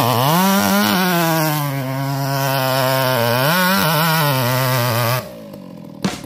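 Two-stroke chainsaw revved to full throttle, its pitch dropping as the chain loads up in the cut, then running steadily under load with a brief rise partway through. The throttle is released suddenly about five seconds in.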